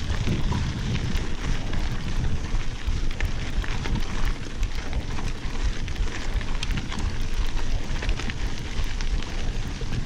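Mountain bike riding over a loose gravel road: wind buffeting the camera's microphone, with a steady run of fine clicks from the tyres on the gravel and the bike rattling.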